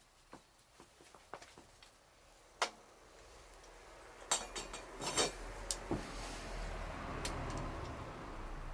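Campfire crackling with scattered sharp pops and clinks, the loudest about two and a half, four and five seconds in, over a rushing noise that builds from about three seconds in.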